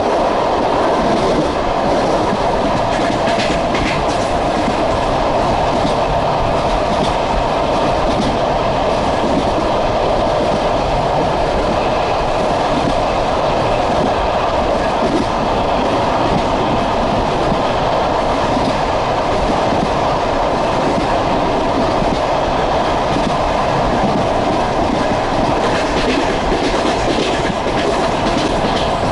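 Passenger train running at speed, heard from on board: a steady rumble of the carriage with the wheels clattering over the rail joints, and a few brief rattles of clicks.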